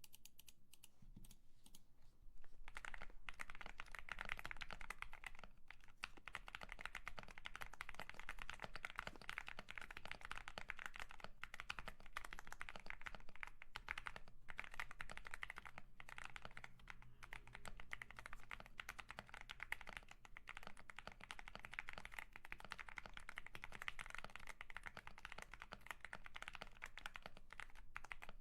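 Typing on a YUNZII AL66 aluminium mechanical keyboard: a fast, continuous run of key clicks that grows louder about two seconds in, with only brief pauses.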